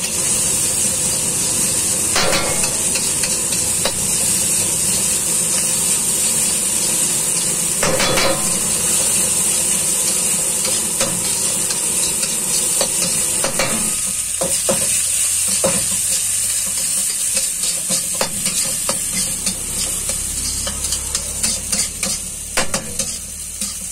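Egg rice sizzling in a steel wok as a spatula stirs and tosses it, with a steady high hiss and repeated scrapes and clinks of the spatula against the pan. The clinks come closer together in the second half.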